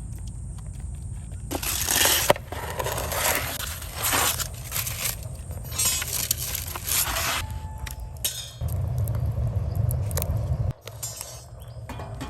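Crunching, crinkling handling noise in several bursts, followed by a low rumble and a few clicks.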